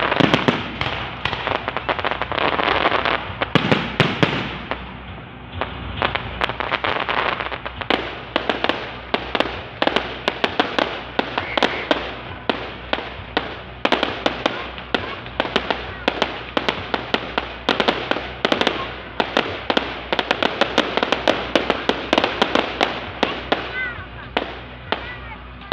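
Fireworks display: a dense, continuous stream of crackling pops and bangs, several a second, heaviest in the first few seconds.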